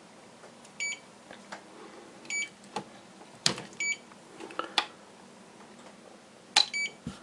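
Short electronic double beeps at one high pitch, four pairs spaced unevenly, from the RC gear just after the receiver has bound. Between them come a few sharp clicks and knocks as the radio transmitter is handled, the loudest about three and a half seconds in.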